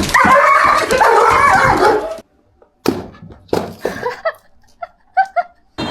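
A frightened dog barking and yelping loudly for about two seconds, cut off suddenly, then a few short high yips with soft knocks in between.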